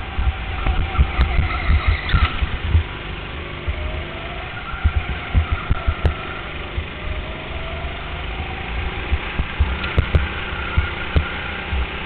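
Go-kart running at racing speed, heard from on board, its pitch rising twice as it accelerates out of corners, over a heavy, uneven low thumping.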